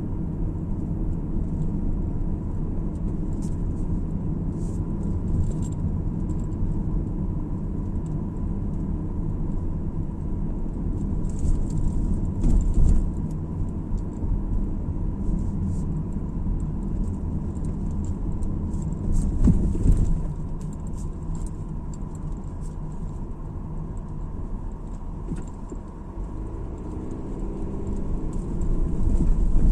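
Car driving, with a steady low road and engine rumble. A few thumps come through around the middle, and near the end the engine note rises.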